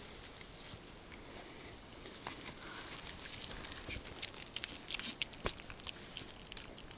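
Irregular clicks and rustling of close movement, as a lemur shifts about on a person's shoulder, densest in the middle, over a steady faint high-pitched tone.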